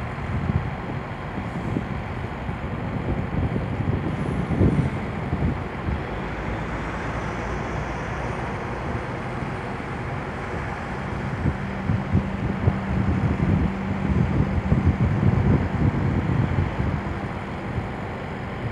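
Wind buffeting the microphone in irregular low gusts over a steady outdoor rumble of distant traffic, with a low steady hum joining about halfway through.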